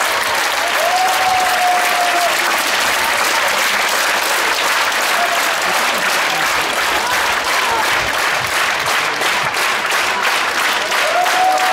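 Large theatre audience applauding, a dense, steady clapping that holds at one level throughout.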